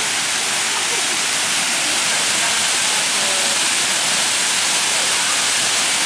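A waterfall pouring over rocks into a pool, a steady rushing noise of falling water.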